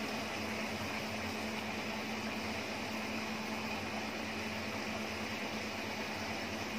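Steady hiss with a low hum under it, from a wok of curry gravy simmering on a lit gas burner.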